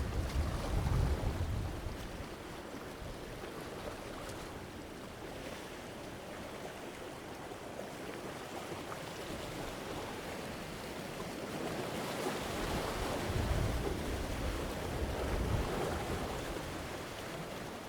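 Medium ocean waves breaking and washing against rocks, a steady wash of surf that swells twice, at the start and again about two-thirds of the way through, with a low rumble as each wave hits.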